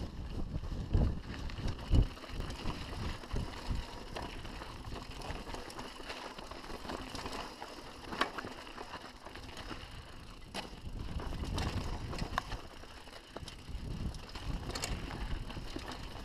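Mountain bike descending rocky, rutted singletrack: tyres crunching over stones, with irregular knocks and rattles from the bike as it hits rocks, most often near the start.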